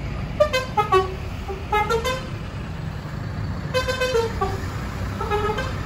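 Bus 'telolet' musical horn of the Basuri type playing three short tunes of stepped notes, over a steady low rumble of engines and traffic.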